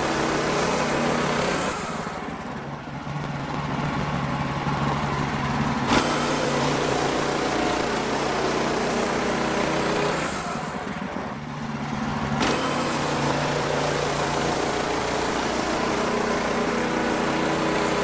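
Wood-Mizer LX55 sawmill running steadily under load as the band blade cuts through a poplar log. The sound drops briefly twice and gives a single sharp click twice.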